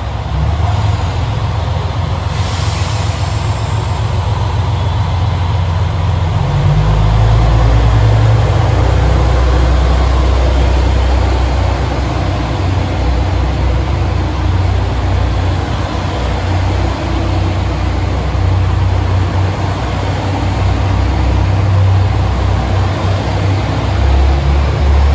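HOT7000-series diesel multiple unit pulling out of the platform, its diesel engines running with a deep rumble that builds strongly about six seconds in as the cars roll past. A brief hiss comes about two and a half seconds in.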